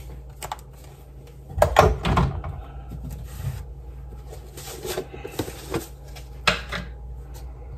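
Plastic spice containers being handled on a kitchen counter: a cluster of sharp knocks and clatter about two seconds in, then scraping and a sharp tap as a plastic salt jar is picked up.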